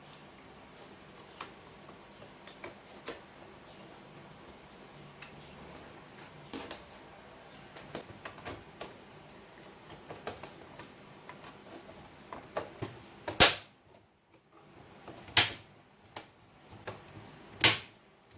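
Small clicks and taps of a laptop's plastic case and parts being handled during reassembly, then three louder sharp knocks about two seconds apart near the end.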